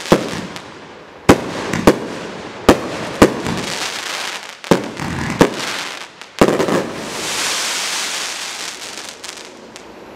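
A 30 mm firework cake firing its last shots: about eight sharp bangs, half a second to a second and a half apart, then a high hiss of sparkling stars that fades out as the cake finishes.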